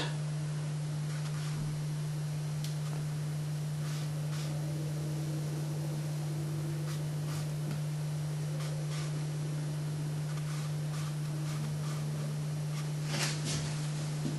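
A steady low electrical hum, with faint scattered ticks and soft rustling of a watercolour brush working on paper, and a short cluster of clicks near the end.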